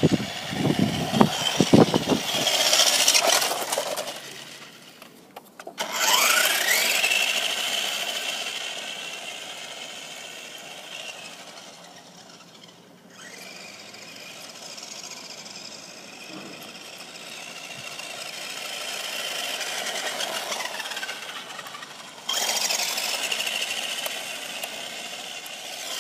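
Radio-controlled car's motor whining at high speed in repeated runs past and away, each swelling and fading, with a rising or falling pitch as it speeds by. There are clattering knocks in the first couple of seconds, and the passes come loudest about six seconds in and again suddenly about twenty-two seconds in.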